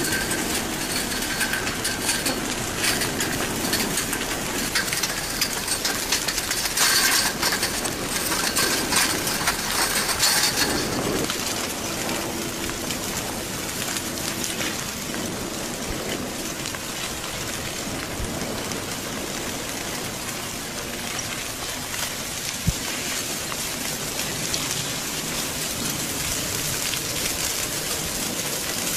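Advancing blocky ʻaʻā lava flow crackling and clinking as its cooled crust breaks up and chunks tumble off the glowing front, a dense patter of small cracks like rain. It is a little louder in the first ten seconds or so.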